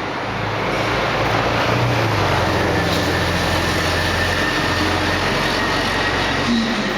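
A motor vehicle running close by: a low engine hum under a loud, steady rush of road noise that builds about a second in.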